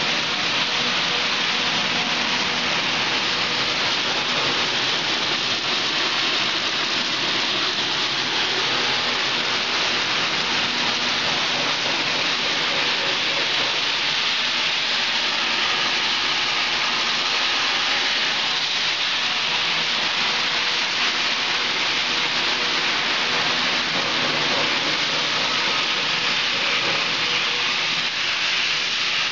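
Dog food processing line machinery running with a steady, loud hiss and a faint hum underneath.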